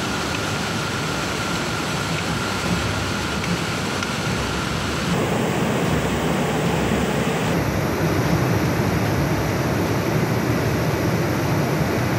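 Steady rushing noise of floodwater: a muddy river torrent, then water pouring over a weir from about five seconds in, then a dam spillway discharging from about seven and a half seconds in, each change cutting in abruptly.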